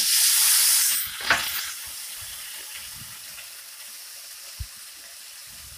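Raw rice sizzling in hot ghee in a nonstick pan as it starts to fry: a loud sizzle for about the first second, settling into a steady fainter sizzle. A click comes a little after a second in.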